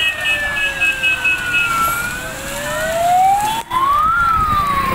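Fire engine siren wailing in a slow cycle: its pitch falls, rises for about two seconds, then falls again. The sound cuts out for an instant about three and a half seconds in.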